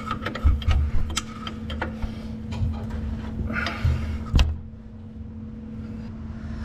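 Hands working power steering line fittings in a truck's engine bay: scattered small clicks, taps and rubbing of metal lines and hose, with one sharp click about four and a half seconds in, over a steady background hum.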